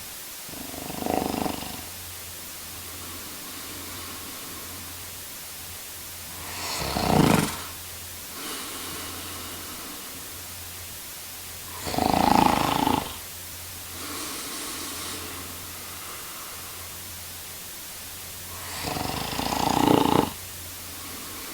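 A man snoring: four loud snores about six seconds apart, with two softer breaths between them, over a steady background hiss.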